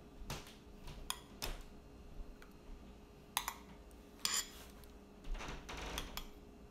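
Kitchen utensils and dishes clinking and knocking in scattered, irregular taps while melted butter is measured out for the dough.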